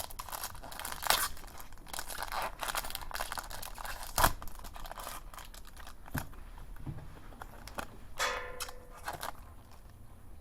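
Foil wrapper of a Yu-Gi-Oh booster pack being torn open and crinkled by hand, a dense rustling with a few sharp crackles, easing off after about six seconds. A short pitched sound comes about eight seconds in.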